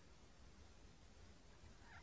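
Near silence: a faint steady hiss and low hum. Near the end a cat facing a dog begins to cry faintly.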